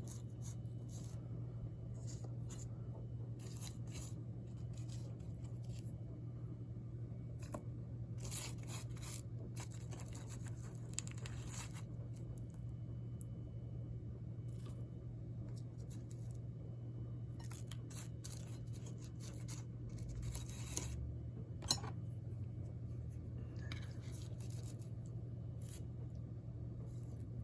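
Pie crust being cut and scraped off the top of a chicken pot pie, in short, irregular scratchy bursts and one sharp click near the end, over a steady low hum.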